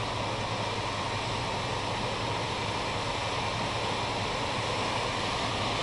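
Steady rushing of floodwater runoff, with a truck engine running as a low steady hum underneath.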